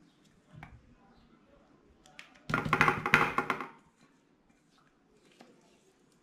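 Spatula scraping chocolate cream out of a bowl: one loud, juddering scrape lasting about a second in the middle, with a few faint taps around it.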